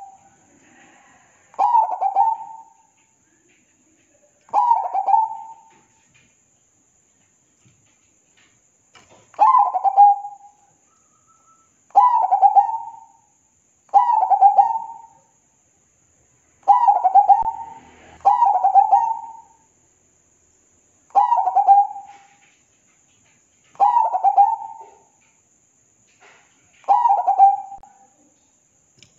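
Zebra dove (perkutut) cooing its song: about ten short phrases of rapid staccato coos, each about a second long, repeated every two to three seconds, with one longer pause after the second phrase.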